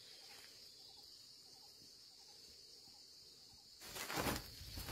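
Steady, faint high insect chirring. Near the end, a loud brief flurry of rustling as the captured red junglefowl rooster flaps its wing.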